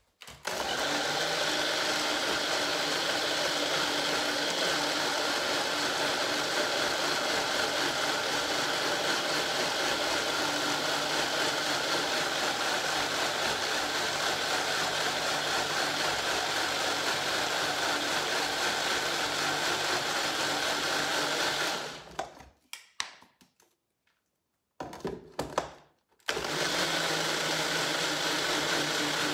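Countertop blender running at high speed, blending a thick herb and hemp seed dressing. It cuts out about 22 seconds in, gives a couple of short spurts, then runs steadily again from about 26 seconds in.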